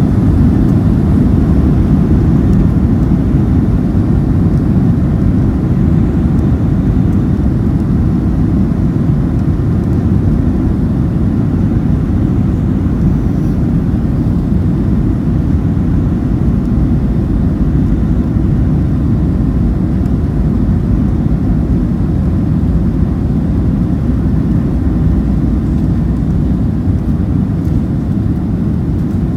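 Cabin noise in a Boeing 737-700 taxiing, heard from a window seat aft of the wing: a steady low rumble from the CFM56-7B engines at taxi power, with no spool-up.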